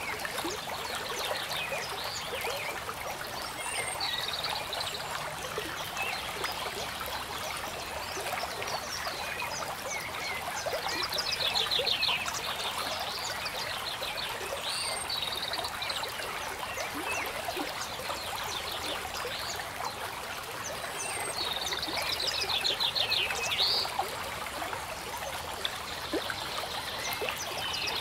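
Stream trickling steadily, with frogs calling now and then in short pulsing trills and a few faint high bird chirps.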